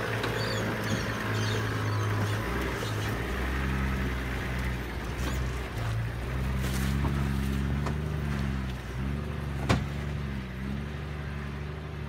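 Toyota LandCruiser 70-series ute's engine running under load as it climbs a rutted dirt track, the revs rising and falling as the driver works over the ruts. A single sharp knock about ten seconds in.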